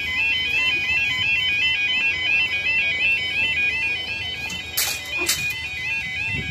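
Level-crossing warning alarm sounding steadily: a warbling two-tone yodel repeating about three to four times a second. Two short hissing bursts cut in about five seconds in.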